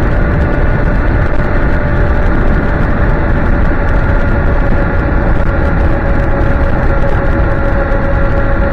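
Electric scooter cruising at a steady speed: the motor's whine holds one pitch, layered over heavy wind rumble on the microphone.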